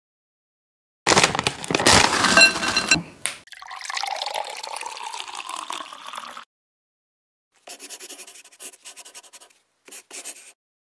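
Animated-logo sound effects: a loud watery rush that fades away as the logo fills with liquid, then two short runs of quick scratchy ticks, like a pen writing, as the script lettering is drawn.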